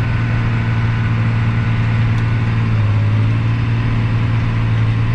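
Tractor engine running steadily while planting, a constant low drone.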